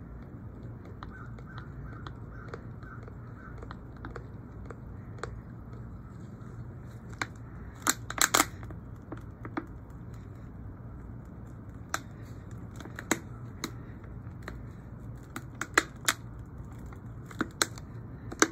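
Scattered clicks and crackles of a plastic water bottle being handled, picked up, tilted and set down, loudest in a quick cluster about eight seconds in. A steady low hum runs underneath.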